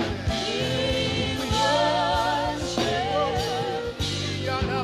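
Live gospel worship music: a sung melody with wavering, held notes over a band's steady bass and regular drum hits.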